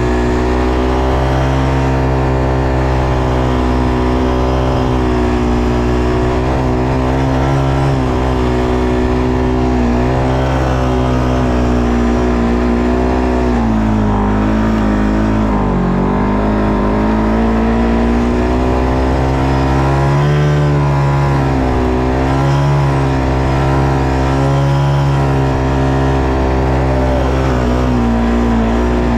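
ATV engine running steadily under way. Its pitch dips and climbs back twice as the throttle eases off and opens again.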